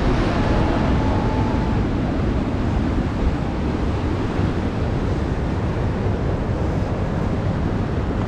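Heavy ocean surf washing and breaking, with wind buffeting the microphone in a steady low rumble.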